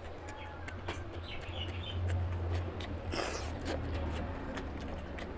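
Close-up eating sounds of curry and rice eaten by hand: wet mouth clicks, chewing and lip smacks, with a louder smack about three seconds in, over a steady low hum.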